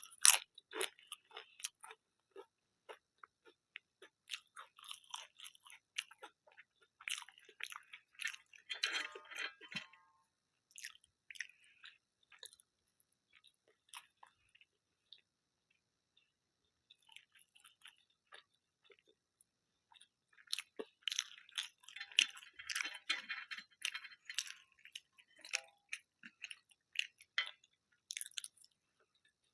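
Close-miked mouth sounds of a person eating: chewing with clusters of crisp crunching, busiest near the start, about a third of the way in and again around two-thirds in, with a sparser stretch in between.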